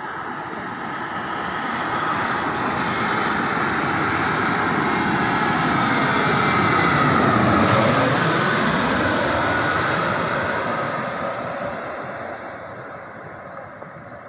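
Airbus A320neo's Pratt & Whitney geared turbofan engines on final approach, passing low overhead: a jet engine sound that builds, peaks about eight seconds in with tones sliding down in pitch as it passes, then fades.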